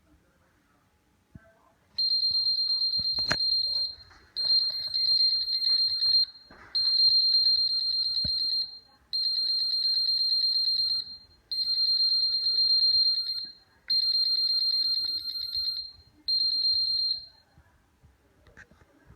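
3DR Solo drone's buzzer sounding a run of seven long, high-pitched, slightly warbling beeps, each about two seconds long with short gaps, the last one shorter. It is the beeping that would not stop after the drone's first flight and connection to Mission Planner.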